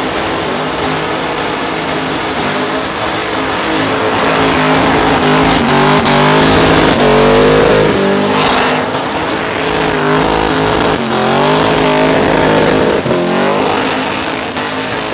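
Supercharged Holden VK Commodore engine revving hard in a burnout, its revs rising and falling again and again over the noise of the spinning rear tyres.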